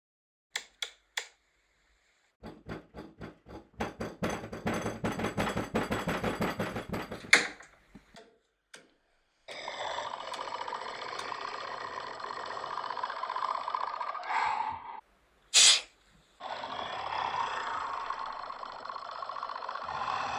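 Home-made foley sound effects: a few single taps, then a fast run of clicks and taps for about five seconds. After a pause comes a long steady hiss standing in for a velociraptor's breathing, broken once by a short sharp sound.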